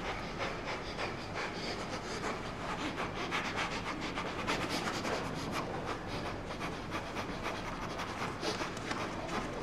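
Continuous scratchy rubbing of cloth close to the microphone, made up of quick, irregular scrapes.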